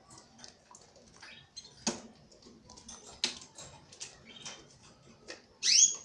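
Canary bathing in a cage bath dish: scattered small splashes and wing flicks. Near the end, one loud, brief canary chirp that rises in pitch.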